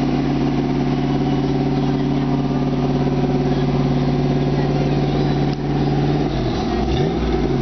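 Shelby GT500 Mustang's V8 running steadily at idle while the car moves slowly; about six seconds in, the revs dip and waver up and down.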